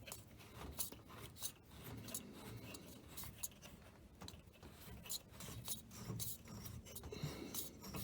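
Faint scattered clicks, taps and rubbing from a combine's engine air filter and its housing being handled.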